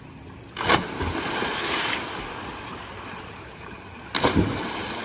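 Two bodies plunging into a deep stream pool from a rock ledge: a splash about half a second in with spray falling for over a second, then a second, louder splash about four seconds in.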